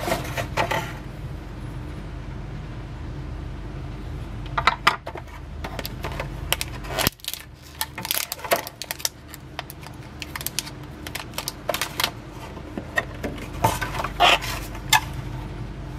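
Clear plastic packaging and cellophane wrap being handled: irregular crinkling and sharp plastic clicks, with crackly bunches around five, eight to nine, and fourteen seconds in.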